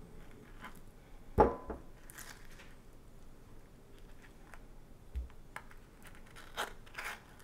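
A metal spoon scooping avocado flesh out of its skin: soft scraping and scattered light clicks, with one sharp knock about a second and a half in and a soft thud later as pieces drop into a glass bowl.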